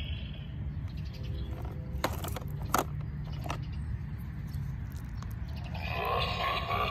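A few sharp clicks as the plastic toys are handled, then about six seconds in a squeezed Pocket Screamer skeleton toy starts playing its electronic scream sound through its small speaker, with its eyes lit. A steady low rumble runs underneath.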